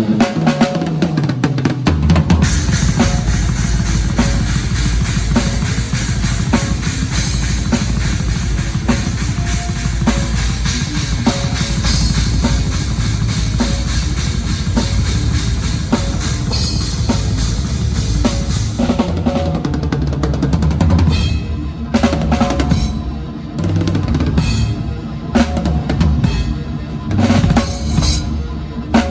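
Drum kit played hard and fast, with a dense run of bass drum hits under steady cymbal wash, breaking near the end into stop-start hits with short gaps.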